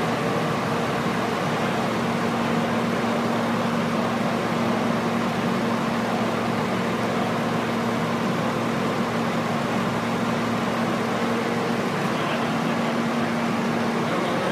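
Steady drone of a diesel pickup idling on a chassis dyno, mixed with the rush of the dyno's big cooling fan; the pitch holds level with no revving.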